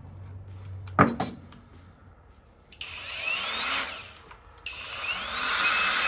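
A sharp click, then a small cordless angle grinder spun up twice with no load, each run starting with a rising whine over a steady hiss; the second run is longer.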